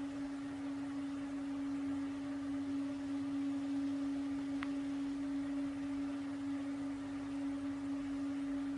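A steady hum at one fixed, fairly low pitch over faint hiss, with one faint short tick about halfway through. No crash or traffic sound stands out.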